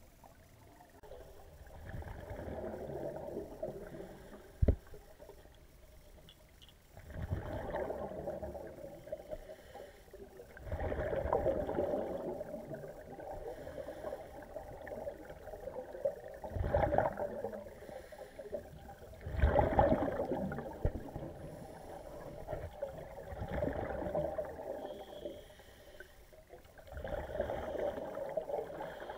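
Scuba diver's breathing heard underwater: bursts of regulator exhaust bubbles every few seconds, each lasting a second or two. A single sharp knock about five seconds in.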